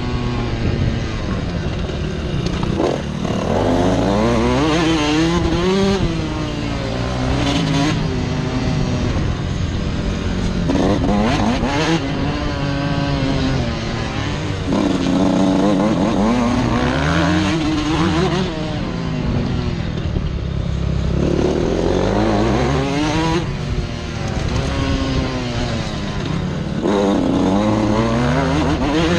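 Suzuki RM125 two-stroke single-cylinder motocross engine heard from on the bike, revving up and dropping off again and again as the rider accelerates and shuts off around the track.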